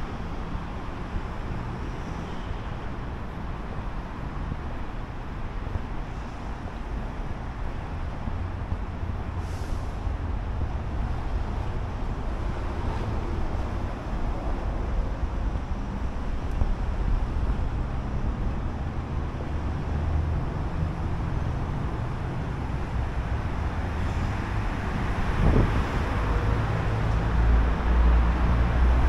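City street traffic noise: cars running past steadily, with a louder vehicle passing close near the end.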